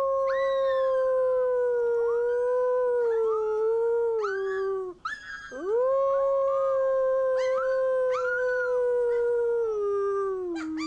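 Two long, steady wolf-style howls in a low man's voice, the first ending about five seconds in and the second sinking in pitch at its end. A wolf pup's thinner, higher howls and short rising yelps join in over them.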